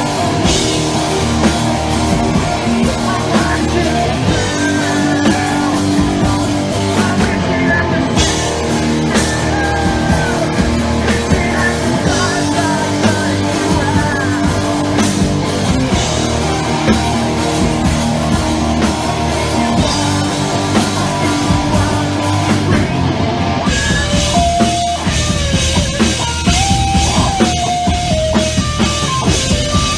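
Rock band playing loudly and continuously, with drum kit and electric guitars over backing tracks, heard through a club sound system.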